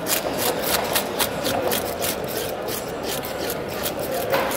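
A hand scaler scraping the scales off a whole fish in quick, repeated strokes, several a second.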